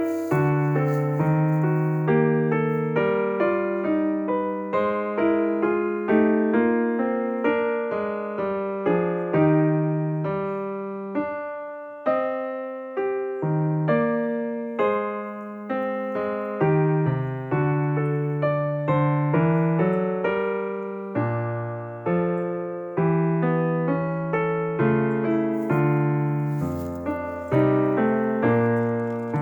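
Background piano music: a melody with chords, each note struck and fading.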